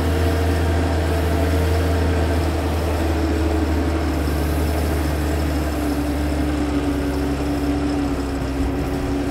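Sisu tracked all-terrain vehicle's engine running steadily, with a drivetrain whine above it that slowly falls in pitch.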